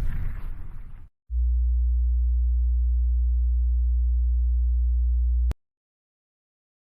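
A single steady, very deep electronic hum (a plain sine-like bass tone) starts about a second in and holds for about four seconds, then cuts off suddenly with a click. Before it, the tail of a louder, noisy sound fades out.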